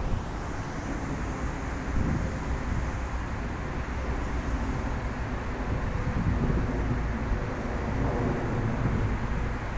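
An electric commuter train running away into the distance, its rumble fading, under steady wind buffeting the microphone.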